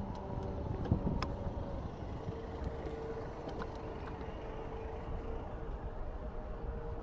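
City street traffic: a steady low rumble of cars driving by, with a faint engine hum and a couple of light clicks about a second in.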